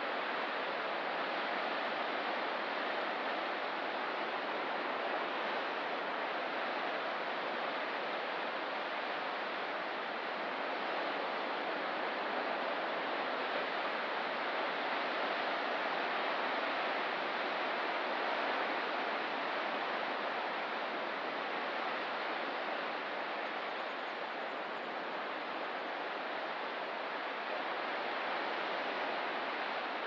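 Ocean surf along a rocky coast, heard as a steady, even wash without distinct breaking waves.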